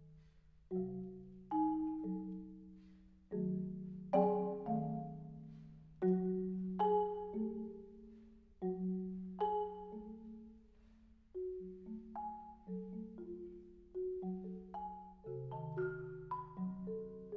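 Marimba played slowly with soft yarn mallets: single notes and chords struck at uneven intervals, each ringing out and fading before the next, with short pauses between.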